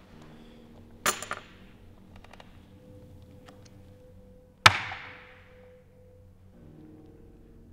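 Poker chips clicking and clattering as bets are pushed onto the table. There is a short rattle of clicks about a second in, then a single louder sharp clack with a ringing tail near the middle.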